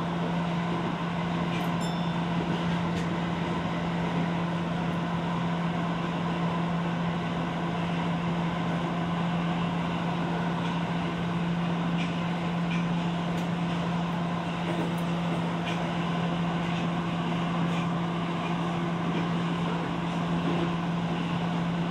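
Interior sound of a Tokyo Metro Ginza Line 1000-series subway car running through the tunnel: a steady rumble of wheels on rail under a constant low hum, with occasional faint ticks.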